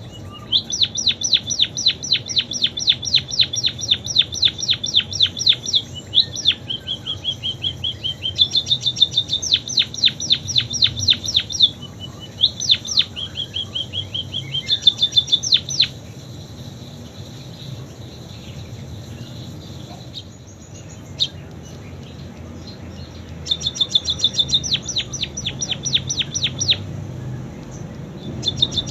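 Pipit singing canary-style song: long trills of fast, repeated sweeping notes, about six a second, shifting between rolls of slightly different pitch. The song breaks off about halfway and resumes for a few seconds near the end.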